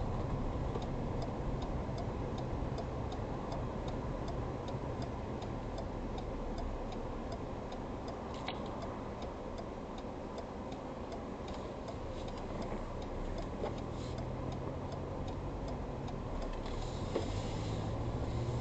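Steady road and engine noise heard inside the cabin of a Ford Ranger Raptor pickup on the move, with a light regular ticking at about three a second through most of it.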